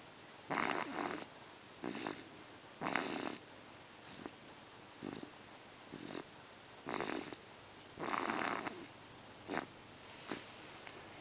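A small pet snoring in its sleep: short, noisy snoring breaths about once a second, some stronger and some barely there.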